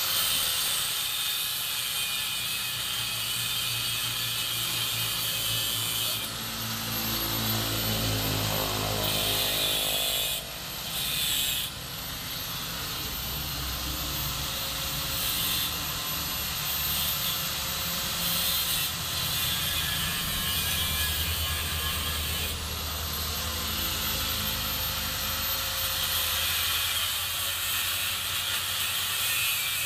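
A handheld power tool used on the motorcycle frame, running steadily. Its high whine starts up several times and each time dies away slowly.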